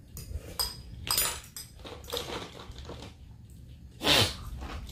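Eating sounds at a table: a metal fork clinking and scraping in a glass bowl, and spicy instant noodles being slurped and chewed, in scattered short clicks and smears. A louder burst of sound comes about four seconds in.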